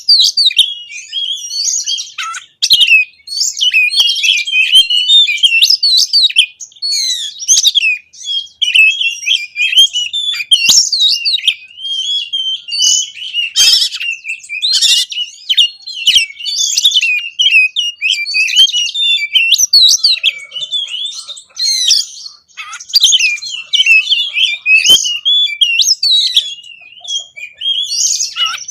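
Oriental magpie-robin (kacer) in full, insistent song: a fast, unbroken run of varied high whistles, trills and chatter packed with mimicked phrases, with only brief pauses between bursts.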